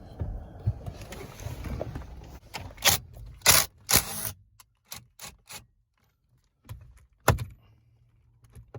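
Hand-handling noises from a car's steering wheel and airbag parts being worked loose: irregular clicks, scrapes and knocks, with a few loud clacks around the middle and another near the end.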